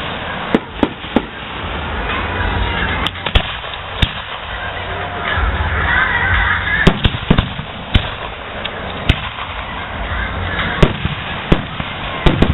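Aerial firework shells bursting in a display: more than a dozen sharp bangs at irregular intervals, some in quick pairs.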